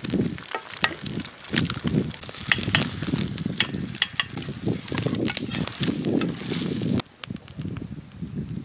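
Eggs frying and sizzling in a stainless-steel pan over a wood campfire, with a spoon scraping and stirring them against the pan and the fire crackling in sharp clicks. About seven seconds in, the sizzle drops away abruptly.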